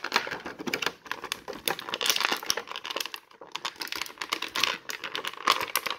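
Thin clear plastic packaging crinkling and crackling as an action figure is worked out of it by hand, in irregular bursts of small crackles.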